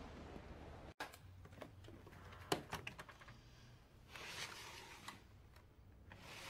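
Faint room tone with a few small clicks and handling sounds, the sharpest about two and a half seconds in, as a silver laptop is opened on a desk.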